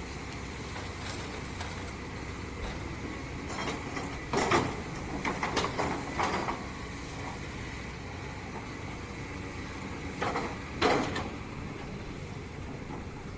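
Excavator's engine running steadily, with several short noisy bursts over it, a cluster about a third of the way in and two more about three quarters of the way through.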